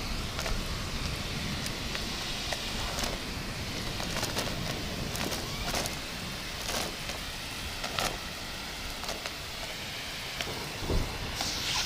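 Steady heavy rain with scattered sharp drip clicks. Near the end a brighter, louder hissing rush comes in.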